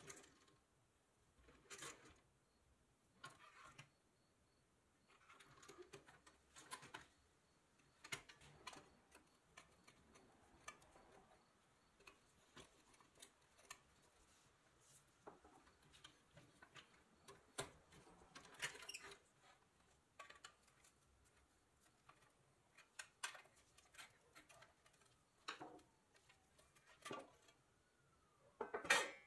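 Faint, irregular metal clicks, taps and scrapes as a small hand tool pries at the tabs of a thin sheet-steel toy truck and its parts are handled and taken apart.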